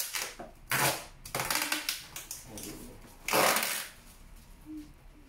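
Handling noise from packing: a few short rustling, scraping bursts, the loudest around one second in and about three and a half seconds in.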